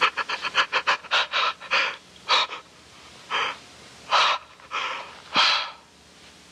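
A young man sobbing with gasping breaths: a quick run of short, catching sobs, then several longer sobs spaced further apart.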